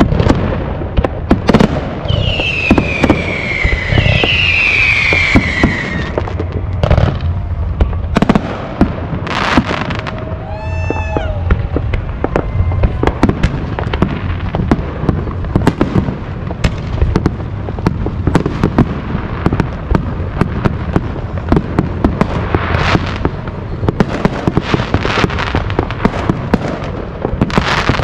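Many fireworks going off at once in a continuous barrage of bangs and crackles. Two falling whistles sound a couple of seconds in, and a brief pitched tone comes about ten seconds in.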